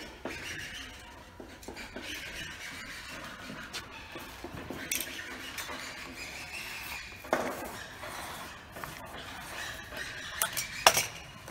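Utility knife scraping and cutting along PVC edge banding, trimming the excess by hand, with a few sharp clicks and knocks, the loudest near the end.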